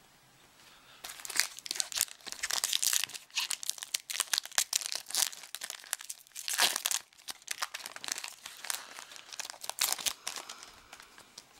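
Crinkling and tearing of a foil trading-card pack wrapper being opened and crumpled by hand. It starts about a second in and goes in uneven bursts.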